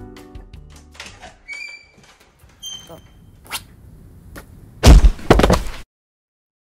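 Background music fading out, then a few light taps and short ringing tones. About five seconds in comes a sudden, very loud burst of hits, a sound effect for the cat clawing the clerk's hand, which cuts off abruptly into silence.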